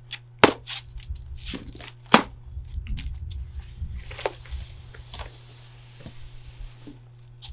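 Cardboard shipping box being opened by hand: several sharp knocks and snaps, the loudest about two seconds in, among tearing and rustling of cardboard and packing material.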